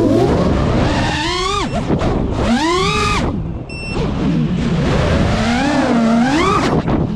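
FPV racing quadcopter's motors whining, the pitch climbing and falling away with each throttle punch, about three surges, with a short easing off near the middle.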